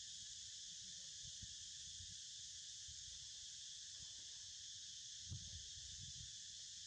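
Faint, steady high-pitched drone of an insect chorus, with scattered soft low knocks and one brief thump about five seconds in.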